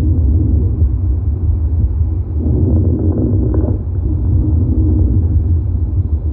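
Stethoscope recording of lung sounds: one breath about two and a half seconds in, lasting over a second and carrying a low-pitched tone, over a constant low rumble.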